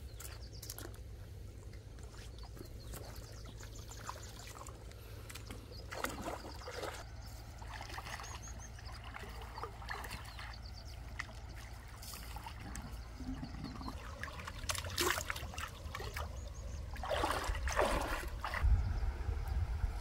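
Shallow stream water splashing and sloshing in several short bursts as hands and a rubber suction hose are moved through it. A steady low rumble runs underneath.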